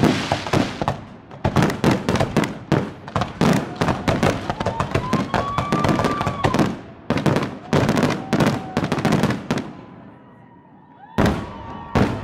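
Fireworks finale: a rapid barrage of aerial shells bursting with sharp bangs and crackle, many bangs a second. The barrage dies down about ten seconds in, then two last loud bangs come near the end.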